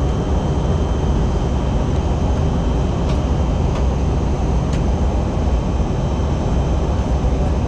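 Steady engine and airflow rumble inside a passenger airplane's cabin during the descent.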